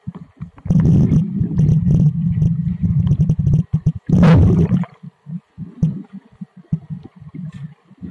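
Muffled underwater rumbling and water churning against a submerged camera, coming and going in uneven surges, with one louder, brighter whoosh about four seconds in.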